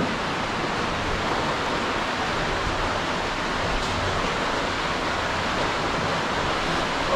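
Underground river rushing through a cave passage, a steady even wash of flowing water.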